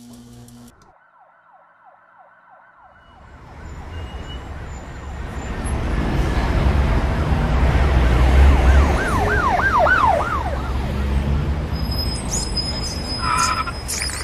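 Emergency vehicle siren over a low, steady city traffic rumble, fading in from quiet about three seconds in; around the nine-second mark the siren switches to a fast yelp.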